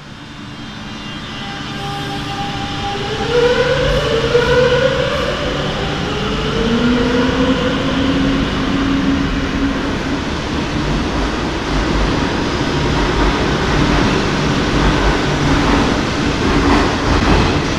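Madrid Metro Serie 8400 electric train moving through the station. Its motor whine climbs in pitch over several seconds as the sound grows louder, then gives way to a loud, steady rumble of wheels on rails.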